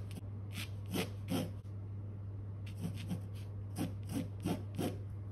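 Pencil scratching across stretched canvas in short drawing strokes, about ten of them in two bunches with a pause of about a second between, over a steady low hum.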